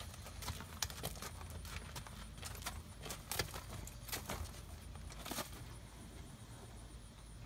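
Irregular metallic clinks and light taps of a horse's halter and lead-rope hardware, with hoof steps on gravel as the horse is led up and stopped; the clinks thin out over the last couple of seconds.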